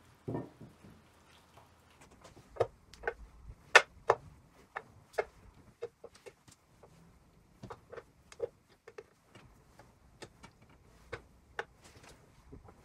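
Strips of raw fat laid one by one onto the bottom of an empty aluminium pot: irregular light taps and clicks against the metal, about one or two a second. A duller knock comes right at the start.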